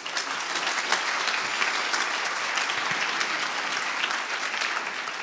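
Audience applauding, many hands clapping steadily, beginning to die down near the end.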